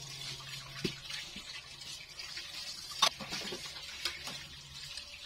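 Quiet kitchen background: a steady low hum and a soft hiss, with a few light clicks and knocks, the sharpest about three seconds in.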